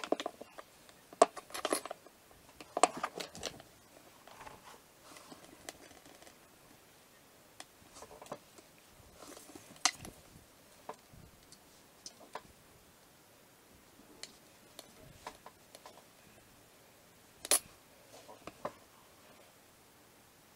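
Scattered light taps, clicks and brief scrapes of hands handling modelling dough and small tools on a tabletop, busiest in the first few seconds, with one sharper click about two-thirds of the way through.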